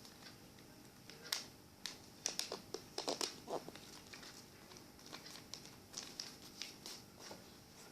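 Sheet of paper being handled and creased: faint crinkles and crisp clicks, bunched about a second and a half to three and a half seconds in, then lighter scattered ticks.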